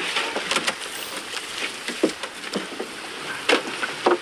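Irregular wooden knocks and clatter from a small wooden fishing boat as a fishing net is handed over, with a steady hiss of water behind.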